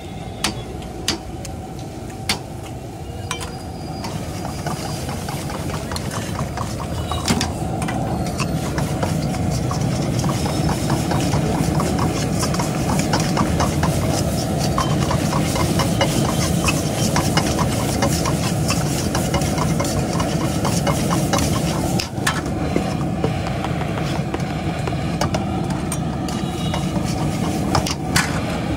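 Flat metal spatula scraping and clinking against a steel wok as eggs and green peas are stirred and scrambled, over a steady low rumble. A few sharp taps in the first few seconds as eggs are cracked, then the stirring gets louder and busier from about four seconds in.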